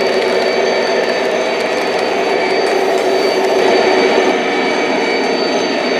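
O-gauge model freight cars rolling past on three-rail track, a continuous rumble of metal wheels on the rails.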